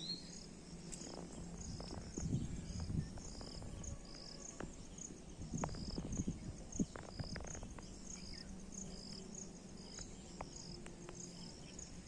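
Crickets chirping in steady, evenly spaced high pulses, with a few low bumps on the microphone about two and six seconds in.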